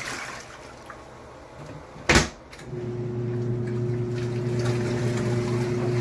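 Giantex portable twin-tub washing machine in its wash cycle: the wash motor's hum has just stopped and water sloshes in the tub. A single sharp knock comes about two seconds in, and a little later the motor's steady hum starts up again with the water churning.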